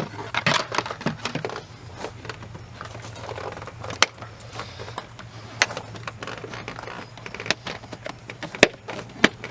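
Plastic dash cover panel being handled and pressed into place, rustling and scraping, with a handful of sharp clicks as its tab and push pins snap in; the loudest clicks come near the end.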